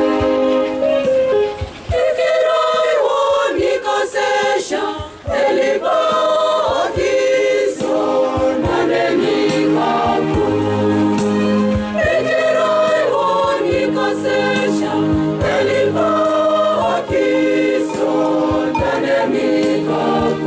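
Church choir singing a hymn in several voices, with a sustained electronic keyboard accompaniment that drops out for a few seconds early on and then returns.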